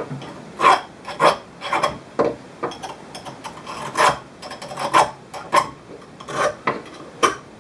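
The cut edge of a glass strip being rubbed down with an abrasive: short rasping strokes, roughly one or two a second and unevenly spaced, taking the sharp edge off the freshly cut glass.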